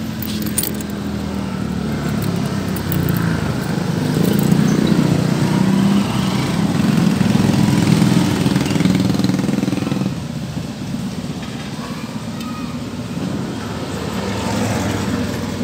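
Street traffic: a motor vehicle engine running nearby, growing louder over the first several seconds and dropping away about ten seconds in.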